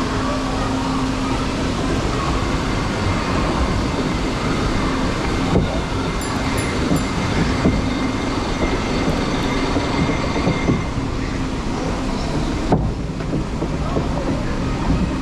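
Log boat of a MACK Rides log flume drifting along its water channel: a steady rumbling wash of moving water and ride machinery under a low hum, with a few knocks as the boat bumps along the channel.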